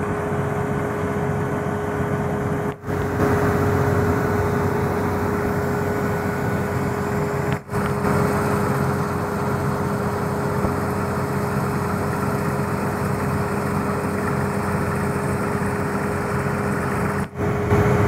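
Large engine of the bore-drilling equipment running steadily at constant speed behind its cooling grille, with a steady whining tone over the engine noise. The sound cuts out for a split second three times.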